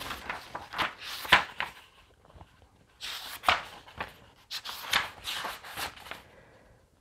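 Paper pages of a hardcover book being turned and handled: a run of papery swishes and rustles, with a short pause about two seconds in.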